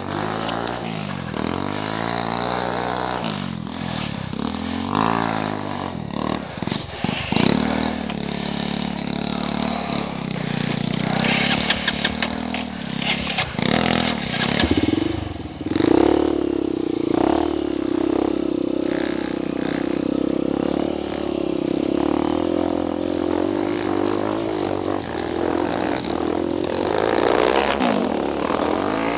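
Dirt bike engine revving up and down as it is ridden over rough ground, with clattering and scraping knocks around the middle. About halfway through it settles into a steady high note.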